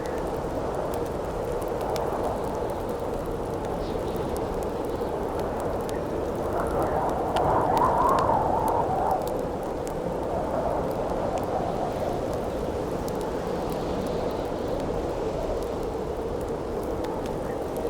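Howling wind as a steady rush that swells into a stronger gust about seven seconds in and eases off after about two seconds, over the light crackle and pops of a wood campfire.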